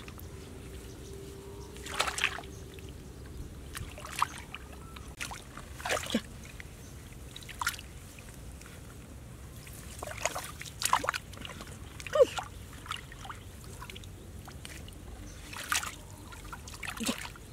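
Shallow muddy water splashing and sloshing inside a bamboo plunge-basket fish trap. About ten short splashes come at irregular intervals over a faint steady background, the sharpest a little past the middle.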